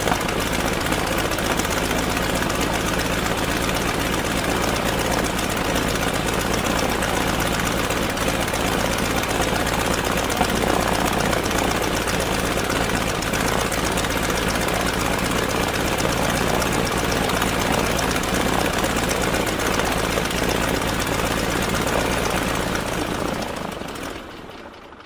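Stearman biplane's radial engine and propeller idling steadily, then dying away near the end as the engine is shut off.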